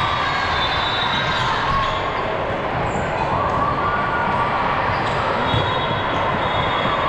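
Busy sports-hall din at a volleyball tournament: many overlapping voices, with several short high squeaks from shoes on the court floor.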